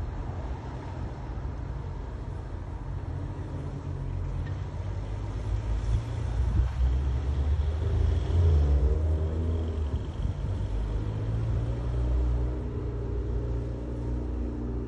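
A low rumble with a droning engine hum that grows louder about halfway through, peaks, then eases off, like a motor vehicle running and passing nearby.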